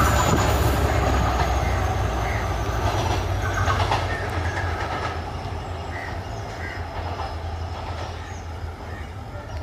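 Sri Lanka Railways Class M11 diesel locomotive running light engine away along the track. Its engine's low drone and the wheel clatter on the rails fade steadily as it draws off, with a few sharper clicks of the wheels a few seconds in.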